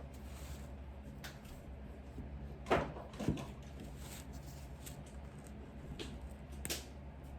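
A few light knocks and clicks of a knife and utensils against a cake pan while a cake is cut, the loudest two close together about three seconds in, over a low steady hum.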